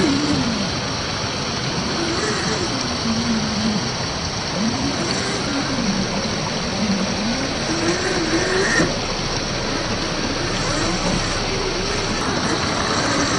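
Steady rushing water of a small waterfall and rocky creek, with a low whine that rises and falls every second or two: the RC crawler's brushed electric motor working as the throttle changes.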